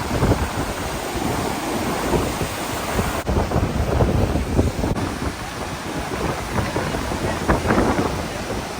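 Rushing water running steadily and loudly, a dense roar like a nearby waterfall or cascade, with wind gusting on the microphone.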